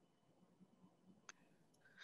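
Near silence: faint room tone, with one faint click a little past the middle.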